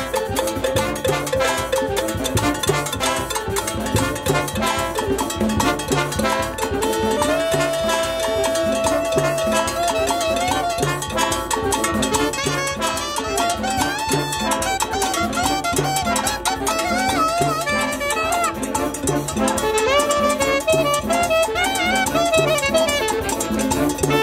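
Brass band playing a Latin dance tune: trumpets, trombones and saxophones over timbales and congas, with a steady bass pulse from the sousaphones. A wavering melody line stands out in the second half.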